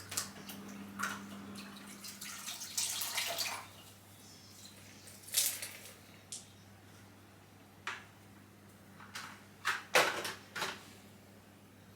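Floor mopping with water: sloshing and dripping, with several short knocks, the loudest about ten seconds in. A low steady hum runs underneath.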